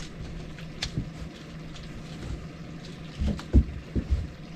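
A few dull knocks and thumps from a mud crab being handled and strapped into a cuff, bunched together near the end, over a steady low hum.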